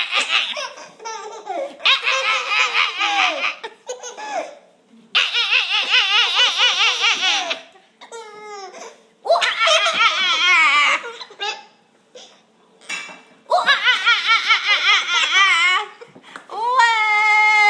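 Baby laughing hard at being tickled, in repeated bouts of belly laughter with short pauses for breath between them. The last bout, near the end, turns into a held squeal.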